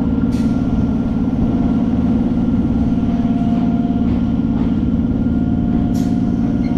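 Electric suburban local train running along a station platform, heard from its open doorway as a steady loud rumble. A faint whine comes and goes, and two brief sharp clicks sound, one near the start and one about six seconds in.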